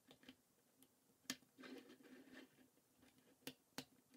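Faint clicks and rattling of plastic K'NEX rods and connectors being snapped together and handled, with a few sharp clicks (one a little over a second in, two close together near the end) and soft rustling between them.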